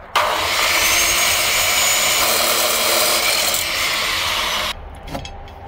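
Abrasive cut-off saw with a large cutting disc grinding through a steel square tube: a loud, harsh grinding that starts just after the opening and cuts off abruptly about 4.7 seconds in, followed by a few faint clicks.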